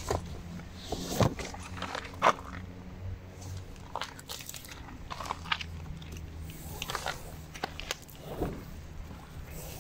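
Irregular crunching and scraping of feet shifting on loose gravel, with the rustle of a rope being handled and pulled.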